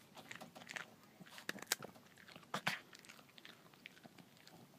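A dog crunching and chewing a treat: an irregular run of short, faint crunches, the loudest about a second and a half and two and a half seconds in.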